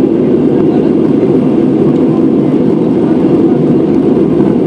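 Steady roar of jet engines and rushing air heard inside an airliner cabin in flight, a low, even rumble with no change.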